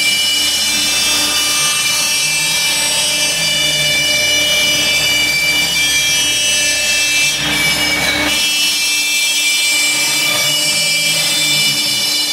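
Laguna Swift CNC router routing 1/2-inch plywood: the spindle's steady high whine over the noise of the bit cutting, with a lower tone that comes and goes as the head moves. Around seven and a half seconds in the cutting noise briefly grows rougher, and a low hum drops out about a second later.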